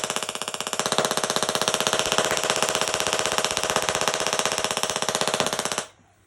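Tesla coil firing: a loud, harsh electric buzz of very rapid sparks that cuts off suddenly near the end.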